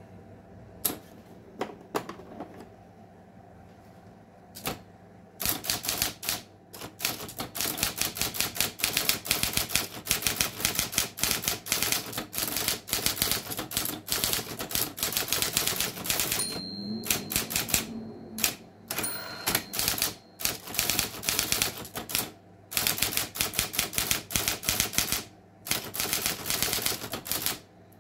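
Erika Präsident electric typewriter being typed on. A few single key strikes come first, then from about five seconds in fast runs of keystroke clacks with short pauses, over the steady hum of the machine's motor.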